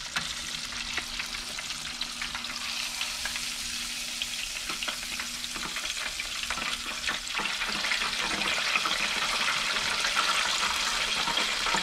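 Soft-shell blue crab deep-frying in hot oil: a steady sizzle with many sharp pops and crackles, growing a little louder over the second half. The crab is floating, the sign that it is done.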